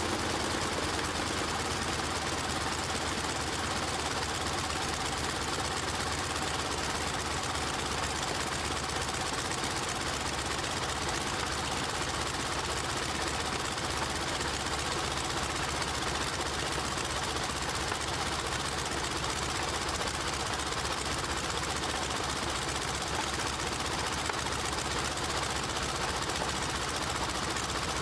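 Radial aircraft engine running at idle on a test stand, turning a four-blade propeller, with a steady, rapid knocking beat.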